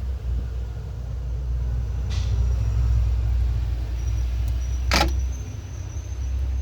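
Low, steady rumble of street traffic, with one sharp click about five seconds in.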